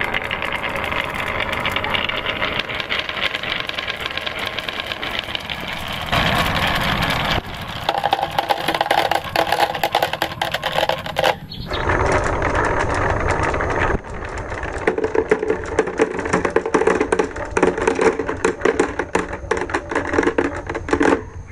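Many glass marbles rolling down carved wooden tracks, clicking against each other and the wood in a dense, rapid clatter. The sound changes abruptly in tone several times.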